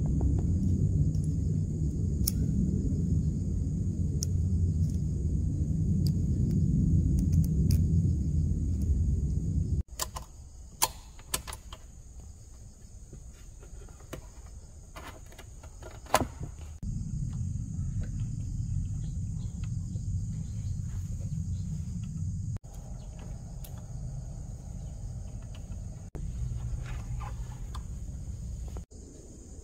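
Stretches of low rumbling noise, cut off abruptly at edits, alternate with quieter stretches of sharp metallic clicks as the needle and presser-foot area of a 1953 Singer sewing machine is handled. Crickets chirp steadily throughout.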